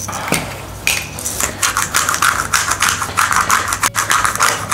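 Garlic and salt being crushed into a paste: a quick run of taps and scrapes, several a second.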